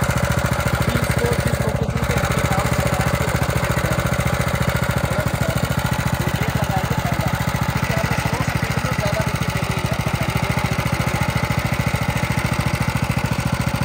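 Honda 9 HP single-cylinder four-stroke petrol engine of a power tiller running steadily at idle, in neutral with the PTO disengaged.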